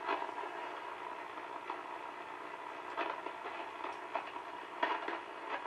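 Hallicrafters SX-100 Mark 1 shortwave receiver hissing static through its speaker, with a faint steady tone and a few short crackles.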